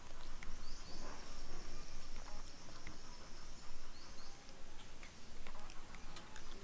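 Outdoor ambience with an insect's high, steady buzz that starts a little under a second in and stops about three and a half seconds later. Faint scattered clicks lie under it.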